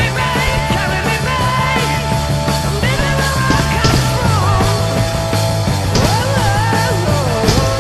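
Loud rock music: a steady bass line under bending, wavering pitched lines of singing.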